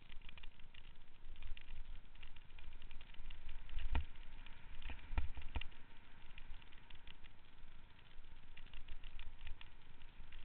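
Mountain bike rolling over a rough dirt trail: a low rumble with constant small rattles and clicks from the bike, and a few heavier knocks from bumps about four and five seconds in.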